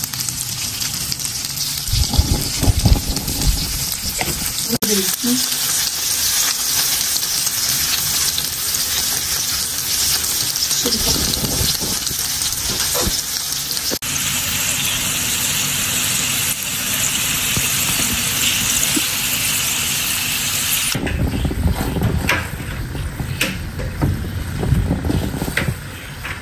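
Potato slices sizzling steadily as they fry in hot oil in a pan. About 21 s in the sizzle drops, and a wooden spatula scrapes and taps against the pan as the slices are turned and lifted out.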